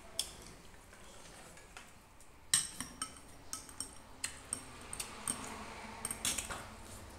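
A metal spoon clinking against plates and a glass bowl during a meal: a dozen or so short, sharp clinks at irregular intervals, the loudest about two and a half seconds in.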